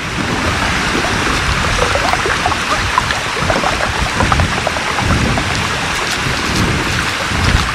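Water from a burst water main gushing and falling back as a heavy spray, a steady rushing like a downpour with scattered splashes.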